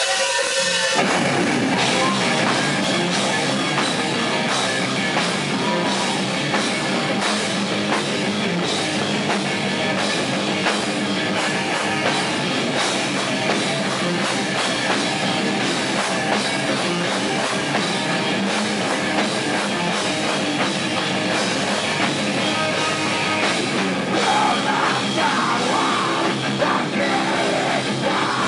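Live heavy metal band playing loud: distorted electric guitars, bass guitar and drum kit, the full band kicking in about a second in.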